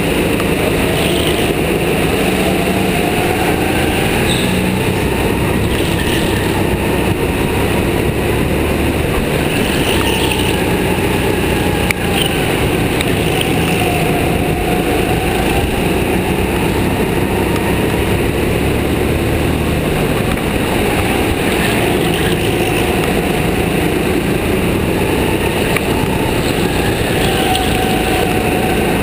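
Go-kart engine heard from onboard while racing: it runs loudly and constantly, its pitch rising and falling as the driver goes on and off the throttle through the corners.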